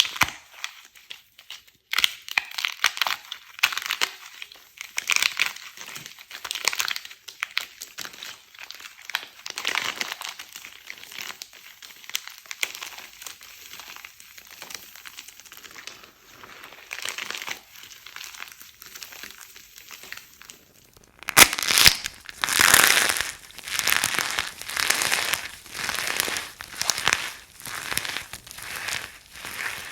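Dry bar soap being crunched and crumbled, a dense run of crisp crackling. About 21 seconds in it changes abruptly to louder crunches coming about a second apart.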